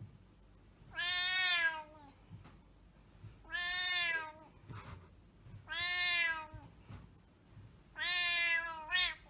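Domestic cat meowing in four long, drawn-out calls about two seconds apart, each sagging in pitch at the end; the last is followed by a short, quick meow.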